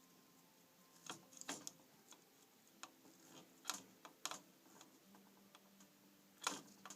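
Scattered small clicks and taps of multimeter probe tips on a TV circuit board as they are worked onto a tiny surface-mount fuse, at irregular moments, the loudest near the end.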